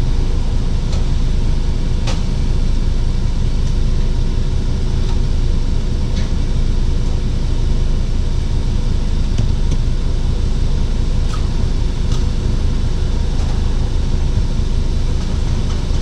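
Car engine idling steadily, heard from inside the car as a constant low rumble, with a few faint clicks now and then.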